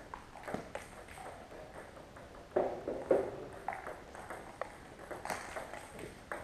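Table tennis ball bouncing and clicking on table and floor in irregular single hits, the loudest pair about two and a half to three seconds in.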